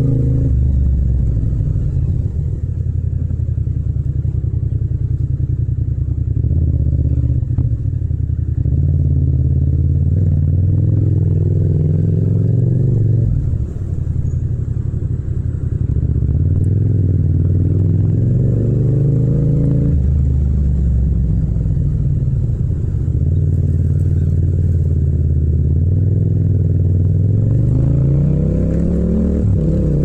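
Yamaha MT-07's 689 cc parallel-twin engine running under way, its revs rising and falling with the throttle and gear changes. The revs drop briefly about thirteen seconds in, and near the end the pitch climbs steadily as the bike accelerates.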